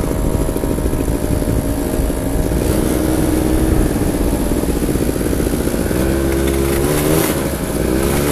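Quad ATV engines running as they cross sand dunes, with the pitch rising and falling as the engines rev from about six seconds in.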